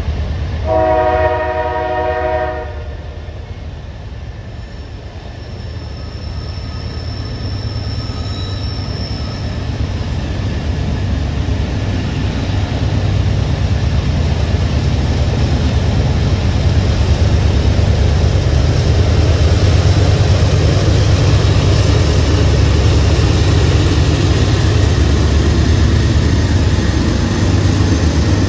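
A freight train's air horn sounds one blast of about two seconds, several notes together, near the start. Then the deep rumble of the diesel locomotives grows steadily louder as the train approaches, until the lead Norfolk Southern units pass close by near the end.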